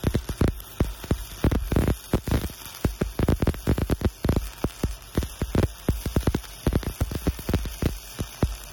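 Shielded metal arc (stick) welding arc crackling and popping irregularly as a cellulose pipeline electrode burns into steel pipe.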